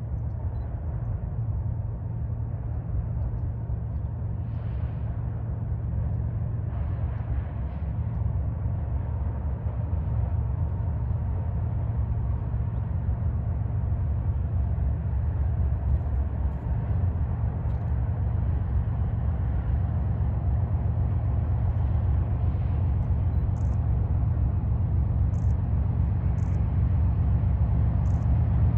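Diesel locomotives of an approaching BNSF freight train running, a steady low rumble and engine drone that grows slowly louder.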